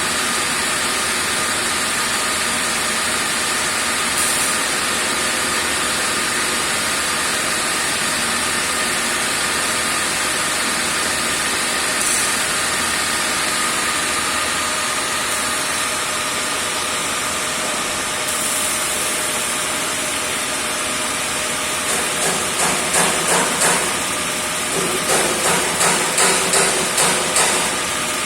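A grinder running steadily with a constant whine. Near the end come two short runs of rhythmic pulsing, about three pulses a second.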